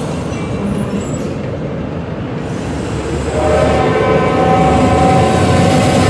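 Steady rumble of a freight train rolling by. About three seconds in, a five-chime locomotive air horn on the CSX GP40-2 and road slug set starts and is held, louder than the rumble, several notes sounding together.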